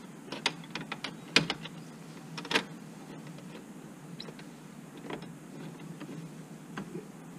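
Scattered clicks and knocks of the hatch brace's mount and screw being handled and fitted at the boot floor, the loudest about a second and a half in and another about two and a half seconds in, over a low steady hum.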